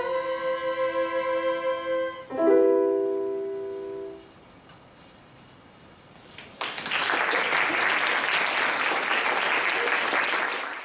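An orchestra plays its closing bars and lands on a final chord a little over two seconds in, which rings out and stops about four seconds in. After a short pause, the audience applauds steadily.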